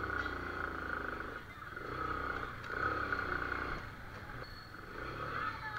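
Keeway RKS 100 motorcycle's single-cylinder 100 cc four-stroke engine running at low speed, swelling and easing a few times with the throttle.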